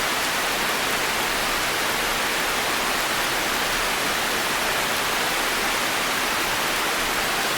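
Constant heavy rain falling on forest trees and foliage, a steady dense hiss of drops with no separate patters standing out.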